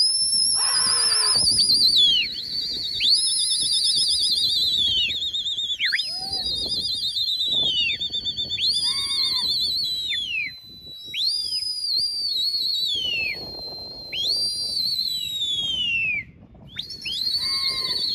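Loud, shrill human whistling, repeated about a dozen times: each whistle shoots up in pitch, holds with a fast warble, then falls away, with a second long steady whistle overlapping around the middle. It is the kind of whistle Delhi pigeon flyers use to drive their flock aloft.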